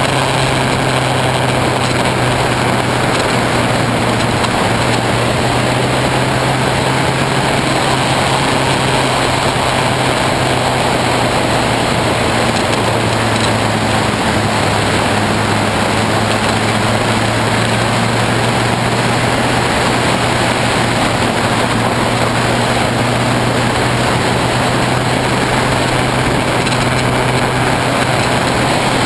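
Honda CBF600S motorcycle's inline-four engine running steadily at cruising speed, mixed with loud wind and road noise. It is heard through a GoPro's waterproof housing, which gives the recording a harsh, noisy sound.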